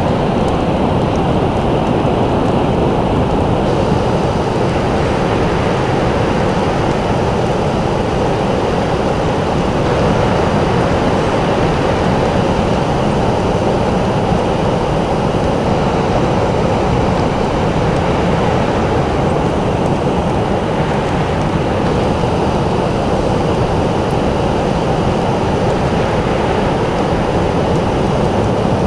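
Ocean surf breaking in a steady, even roar, with no separate wave swells standing out.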